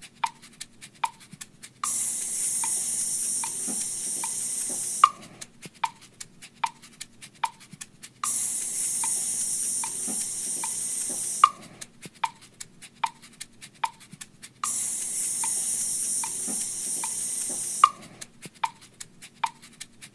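Metronome clicks at about two a second, the first of each group accented, alternating every three seconds or so with a steady hissing noise: the 'sound' and 'silence' sections of a rhythm practice track.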